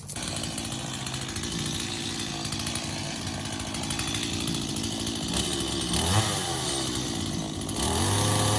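A small engine-powered tool running steadily, then revving up near the end with a rising pitch.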